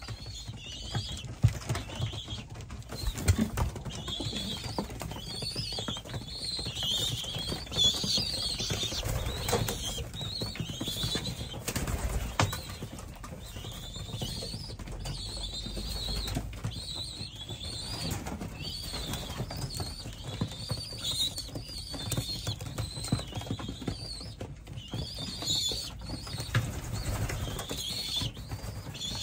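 Pigeons in a loft, with wing flaps and a few knocks, under repeated short high chirping bird calls.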